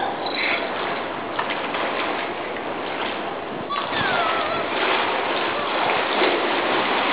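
River water rushing and splashing steadily, with a few clicks and a short, high, falling whine about four seconds in.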